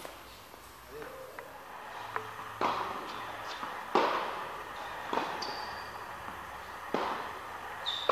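Tennis balls struck by rackets and bouncing on an indoor court, a few sharp knocks about a second or more apart that echo through the hall, the one about four seconds in the loudest. Two brief high squeaks come between them.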